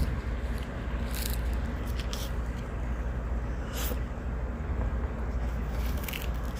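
Eating noises from a person eating noodles: a few short mouth smacks and slurps, spaced out, over a steady low rumble.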